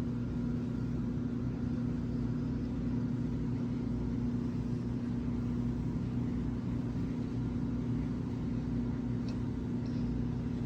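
Steady low machine hum with a constant pitched tone, unbroken throughout.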